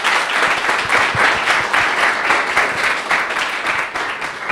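An audience applauding, many hands clapping at once, the clapping thinning out near the end.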